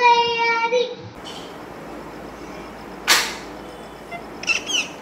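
A child's voice holding one long, steady sung note for about a second. Then low hiss, with a short hissing burst about three seconds in and a few quick, high chirps near the end.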